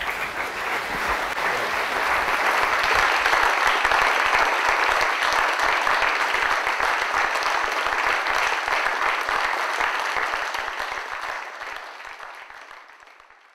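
Audience applauding, building over the first few seconds and fading away near the end.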